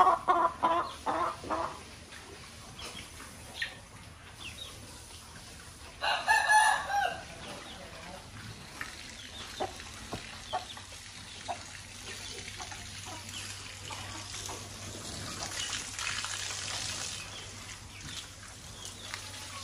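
A hen clucking in a quick run of calls that trails off within the first two seconds, then one louder chicken call about six seconds in. Between and after, scattered soft clicks over a low hiss.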